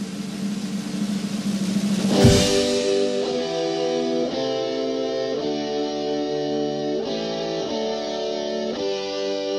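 Instrumental soundtrack music: electric guitars playing slow, held chords with drums. A loud drum hit comes about two seconds in, and after it the chords change in a steady, stately pace.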